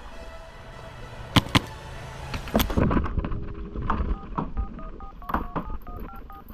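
Sharp cracks of paintball fire, two in quick succession and then a third about a second later, followed by a quick run of about ten short two-tone electronic beeps at shifting pitches.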